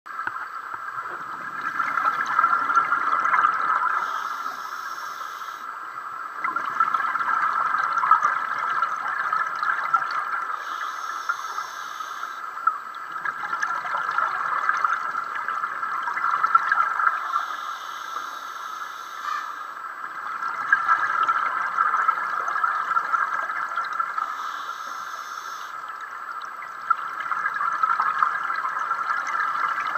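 Open-circuit scuba regulator breathing underwater: a short hiss on each inhalation, then a few seconds of bubbling as the exhaled air leaves the regulator. The cycle repeats about every six to seven seconds, five breaths in all.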